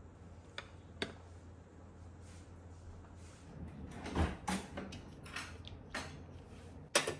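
Two light clicks as sugar-coated rice cakes are set down with chopsticks, then a kitchen drawer being opened and rummaged through, with a string of sharp clatters and a low thump.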